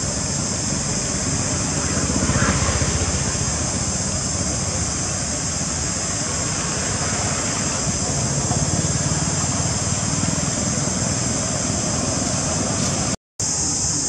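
Steady outdoor background noise: a constant high-pitched hiss over a low rumble. It cuts out for an instant near the end.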